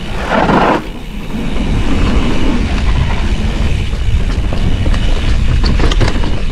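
Mountain bike descending a dirt singletrack at speed: steady rumbling wind buffeting on the camera microphone over the rattle of the bike and its tyres rolling on dirt. There is a louder rush about half a second in and a few sharp clicks near the end.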